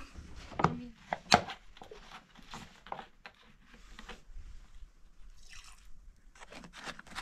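Handling noise: crinkles and clicks of rubber-coated work gloves and a plastic bottle, with a sharp click about a second in. A little after the middle comes a brief trickle of liquid poured from the bottle into a metal paint tin.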